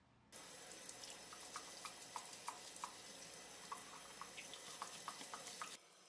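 Tap water running over a washing machine's drain pump filter as it is rinsed, with splashes and drips plinking through the flow. The water comes on suddenly just after the start and is shut off shortly before the end.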